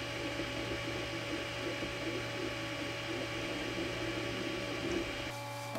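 Lotmaxx Shark V2 3D printer running mid-print: its cooling fans hum steadily while the stepper motors move the print head in an uneven, fluttering whir. The sound thins a little about five seconds in.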